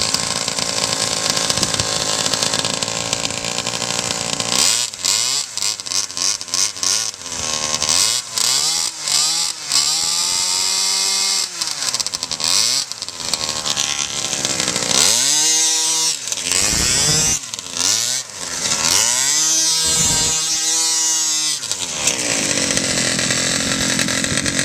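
Small two-stroke Zenoah engine of a gas quarter-scale RC car, buzzing like a dirt bike. It runs steadily at first, then revs up and down over and over as the car is driven, and settles back to a steady run near the end.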